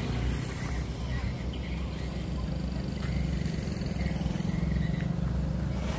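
A motorbike engine running with a steady low rumble.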